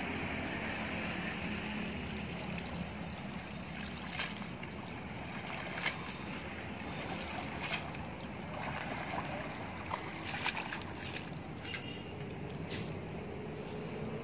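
Water sloshing and dripping as a wet cast net is hauled in by hand through shallow water, with a few short sharp splashes or clicks from about four seconds on.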